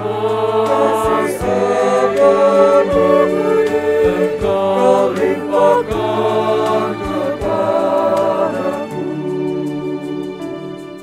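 Mixed choir of men and women singing a slow Christian worship song in harmony over a musical accompaniment; the singing eases off and the music fades near the end.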